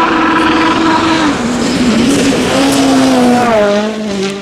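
Rally car engine at high revs, its note dropping about a second in, wavering, then falling steadily near the end, over a haze of tyre noise.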